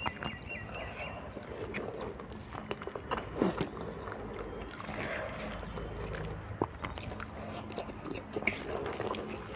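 A person chewing mouthfuls of instant noodles, eaten by hand, with small irregular clicks and scrapes from fingers against a steel plate; a sharper click comes about three and a half seconds in.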